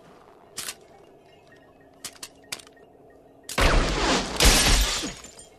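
A few short sharp clicks, then past halfway a loud crash with a deep boom that swells twice and dies away after about a second and a half.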